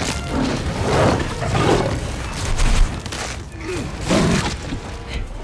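Film action-scene sound effects: a dense run of heavy crashes, booms and thuds, with short pitched cries among them.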